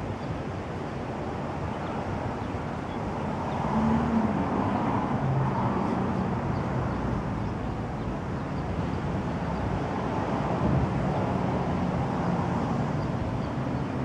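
Steady outdoor background rumble with a low motor-like hum that joins and gets louder about four seconds in.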